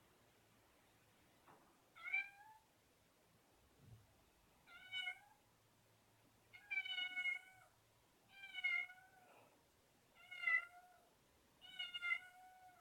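A house cat meowing over and over, six insistent meows about two seconds apart. This is her wake-up call for breakfast.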